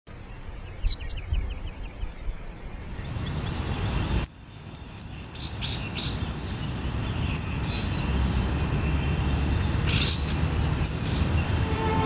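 Small songbirds giving short, sharp, downward-slurred chirps, with a quick run of them about four to five seconds in and scattered single chirps after. Beneath them is a steady low rumble of outdoor noise.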